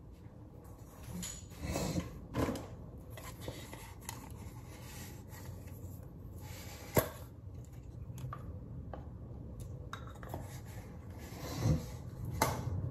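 Household handling noises: a jar being handled and twisted open, with rubbing and scattered clicks and knocks, the sharpest a single click about seven seconds in.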